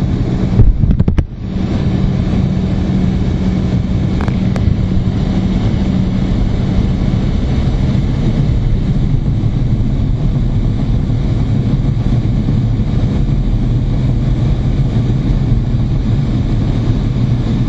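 Cockpit noise of a two-seat MiG-29 fighter in flight: a steady rushing drone with a low, even hum. A short cluster of clicks comes about a second in.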